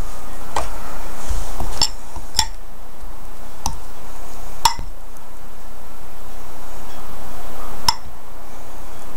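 A fork clinking against the bowl while coating peanut butter balls in melted chocolate: about six sharp, ringing clinks at irregular intervals.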